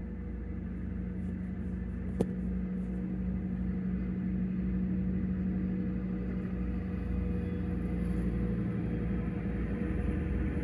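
Long Island Rail Road diesel-hauled train of bilevel coaches passing: a steady rumble with a low hum, and a single sharp click about two seconds in.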